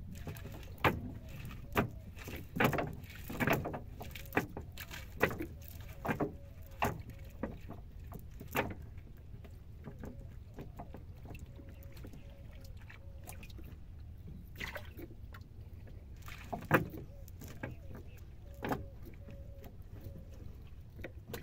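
Cast net being handled on the deck of a wooden boat: irregular sharp clicks and knocks as the weighted net and catch are shifted over the boards. They are bunched in the first nine seconds and again about fifteen to nineteen seconds in, over a low steady rumble.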